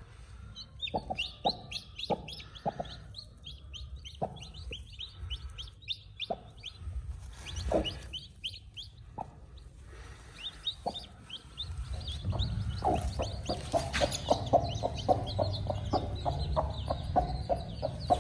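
Newly hatched aseel chicks peeping rapidly while the hen gives short clucks at intervals. A low rumble rises in the last third.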